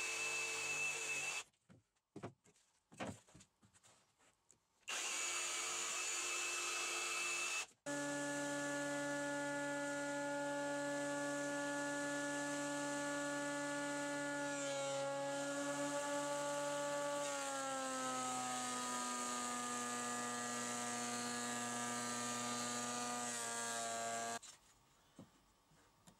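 An electric jigsaw cutting a wooden board in two short spells with a pause between. Then a JIB PT250A thickness planer runs steadily for about sixteen seconds; its pitch drops partway through before it cuts off abruptly.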